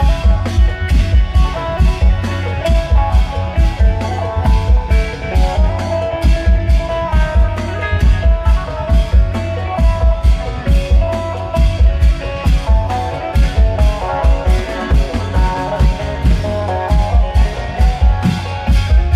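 Isan klong yao long-drum band playing processional music: drums keep a steady, driving beat under an amplified plucked-string melody.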